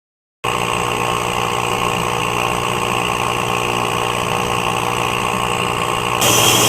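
Factory machinery starts up suddenly and runs with a steady hum made of several held tones, and a loud hiss joins about six seconds in.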